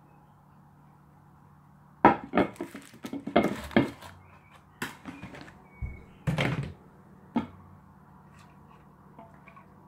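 Handling noise of a glass flask and its aluminium-foil cap: a cluster of sharp crinkles and knocks about two seconds in as the foil is pulled off, then a few scattered knocks over the next few seconds.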